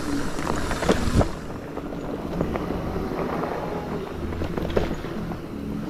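Electric mountain bike rolling fast down a rough, stony dirt trail: tyres rumbling over the ground with wind on the microphone, and the bike rattling and knocking over bumps, sharpest about a second in and again near the end.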